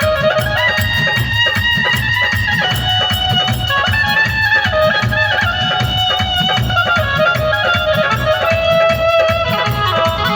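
Instrumental interlude of a live Indian folk devotional song (Shiva bhajan): a melody instrument playing sustained lines over a steady drum beat, with no singing.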